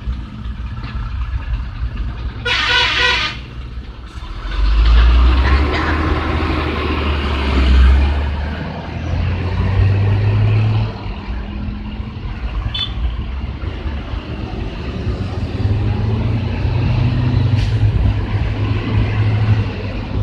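A bus's multi-tone 'telolet' horn sounds once for about a second, about two and a half seconds in. Heavy vehicles then pass with a loud low engine rumble, strongest from about five to eleven seconds in and again near the end.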